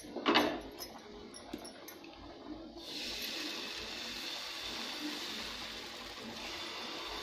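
A sharp knock just after the start, then rava uttapam batter sizzling as it is poured onto a hot oiled tawa. The steady hiss begins about three seconds in.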